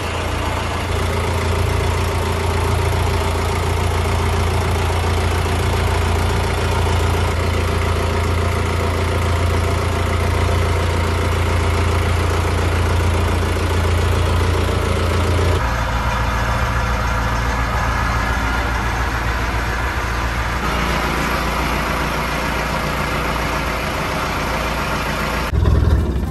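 Isuzu marine turbo-diesel inboard engine, fully overhauled, running steadily at idle, heard close up in the engine compartment. The sound shifts abruptly about two-thirds of the way through, and again just before the end.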